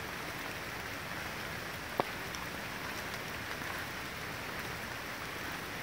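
Steady hiss of outdoor forest background noise, with one sharp tap about two seconds in.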